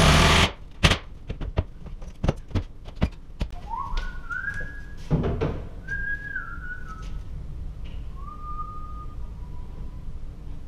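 A power drill drives a screw for about half a second at the start, then a man whistles a few notes of a tune while tools and a level click and knock on the cabinet, with one heavier thump about five seconds in.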